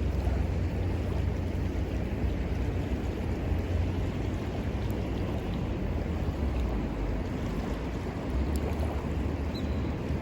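Steady rush of a flowing river with low wind rumble on the microphone, and a few faint pops from a wood campfire.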